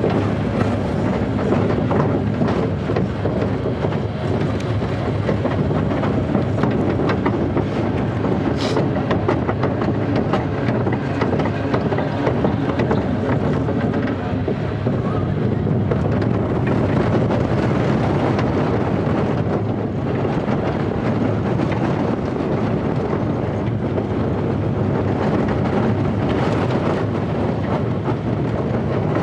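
Zierer Force Two steel roller coaster train running, heard from on board: a steady rumble and clatter of its wheels on the track, with wind buffeting the microphone. A short, sharp high-pitched sound cuts through about nine seconds in.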